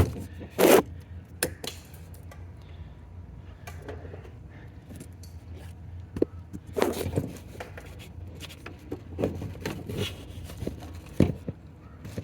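Hands working the plastic clip and latch parts inside a car door: scattered clicks, knocks and scraping, with the strongest click about half a second in and a cluster of them around the middle.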